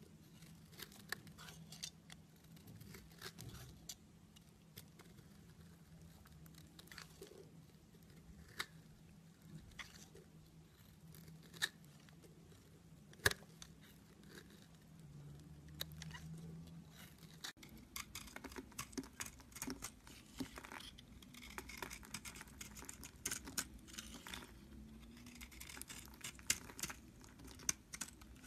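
A snap-off utility-knife blade carving bars of soap: dry crackling scrapes and crisp ticks as flakes shear off, with one sharp crack about halfway through. About two-thirds in the background changes as a second bar is shaved into powdery flakes.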